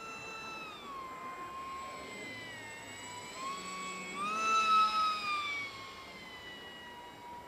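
The motor of a radio-controlled Eurofighter model jet whines as it flies, its pitch rising and falling with the throttle. It is loudest and highest about four and a half seconds in as the plane comes close, then the pitch slides down and the sound fades.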